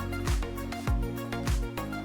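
Background music with a steady beat: a deep kick drum about every 0.6 seconds under held chords.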